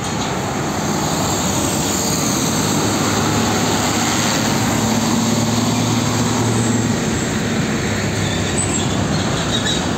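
Isuzu diesel container truck with a loaded trailer passing close by: engine drone over heavy tyre and road rumble, swelling to its loudest in the middle of the pass.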